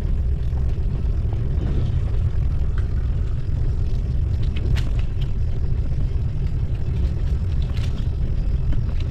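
Steady low rumble of wind and road noise on the microphone of a bicycle riding over an interlocking-brick path, with a couple of sharp clicks about five and eight seconds in.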